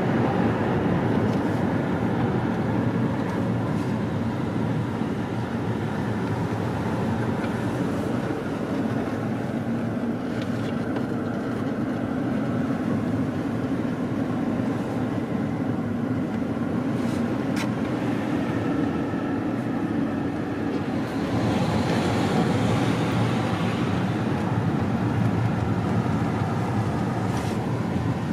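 Steady engine and tyre noise heard from inside a moving car, with a stretch of louder hiss about three-quarters of the way through.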